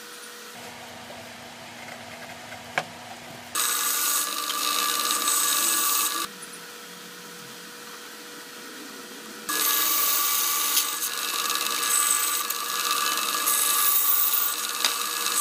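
Bandsaw cutting a wooden board: two cuts, the first about three and a half seconds in lasting a couple of seconds, the second starting near the middle and running on. Between the cuts the saw runs quietly with a steady hum.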